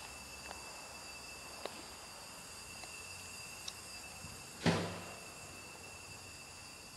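A single short thump about two-thirds of the way through, with a few faint clicks, over a steady thin, high chirring of insects.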